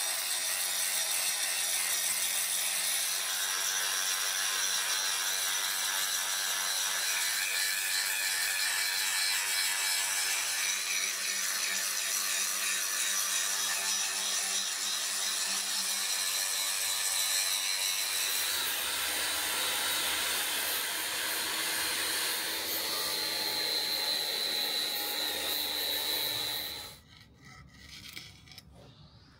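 A power tool working steel, a steady grinding or cutting rasp with shifting high whines, that cuts off suddenly near the end.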